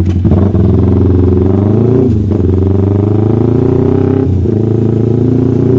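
Kawasaki Ninja 250R's carbureted parallel-twin engine through an aftermarket SC Project exhaust, pulling hard under acceleration. Its pitch climbs, drops briefly about two seconds in and again past four seconds as it shifts up a gear, then runs steadier. It sounds very loud.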